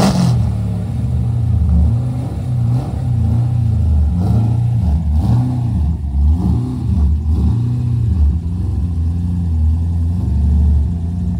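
Engine of a low open-top sports car firing up loudly, then running with an uneven, wavering burble as the car pulls slowly away.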